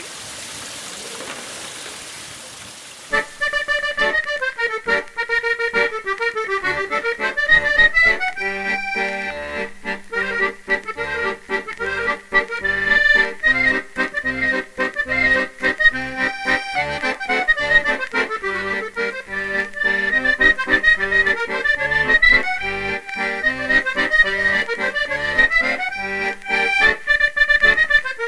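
Water splashing from a fountain spout for about three seconds, then accordion music starts and plays on.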